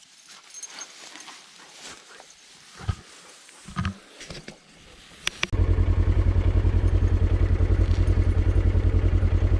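Quiet handling noises and a few clicks, then, about five and a half seconds in, an engine starts being heard abruptly: a loud, steady, evenly pulsing low running sound.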